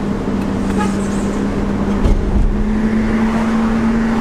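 Car engine running and tyre and road noise heard from inside a moving car; the engine note drops slightly near the start and rises again a little after halfway. A low bump is heard about two seconds in.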